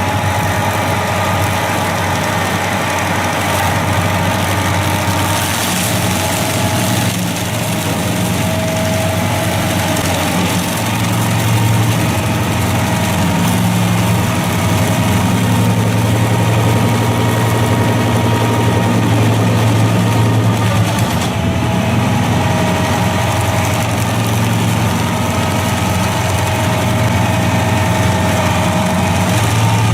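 Heavy machine's engine running steadily under load, growing somewhat louder about a third of the way in and easing back about two-thirds through.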